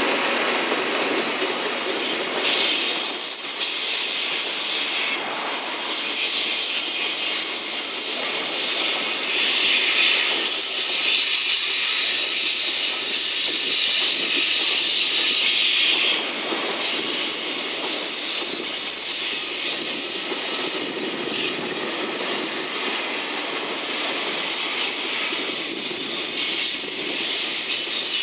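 Loaded container flatcars of a long freight train rolling past at close range: steady wheel-on-rail noise with a strong high hiss, rising and falling as cars go by, and some thin, high wheel squealing past the middle.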